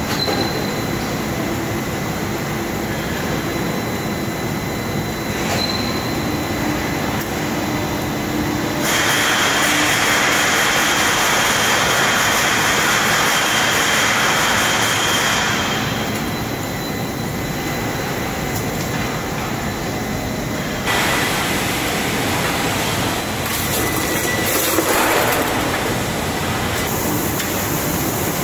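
Steady din of steel-processing machinery on a factory floor. A louder hiss with a thin high whistle in it swells in for about six seconds near the middle, and the noise steps up again about two-thirds of the way through.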